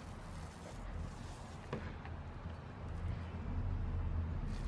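Paint roller rolling floor coating across a trailer's wooden floor, over a low steady rumble, with a faint tick about two seconds in.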